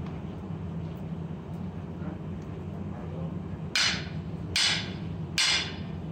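Three hammer blows on hot iron in a blacksmith's forging, a little under a second apart, each ringing briefly, over a steady low hum.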